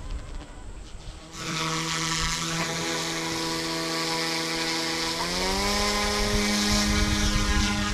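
Eachine E180 direct-drive RC helicopter's electric motors and rotors whining steadily, starting about a second in, then rising in pitch about five seconds in as head speed goes up to flight mode 3, its highest RPM for 3D flight.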